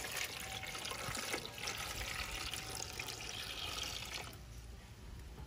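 Water poured from a plastic jug into an aluminium pot of raw eggs, splashing and trickling as it fills. The pour thins and stops about four seconds in.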